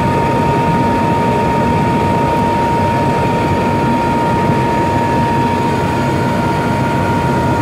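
Helicopter engine and rotor running steadily, heard from inside the cockpit: a constant low rumble under a steady high whine.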